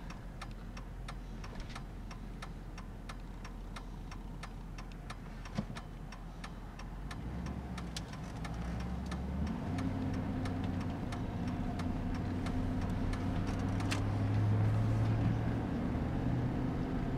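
Turn-signal relay ticking steadily inside the cab of a vehicle towing a trailer, over road and engine noise. From about seven seconds in the engine note rises and gets louder as the rig speeds up, and the ticking stops about nine seconds in.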